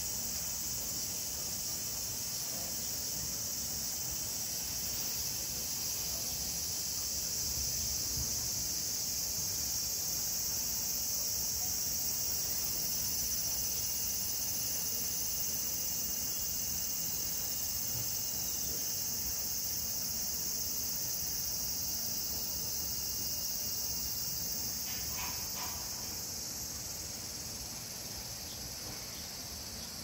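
Chorus of cicadas: a steady high-pitched drone that eases slightly near the end.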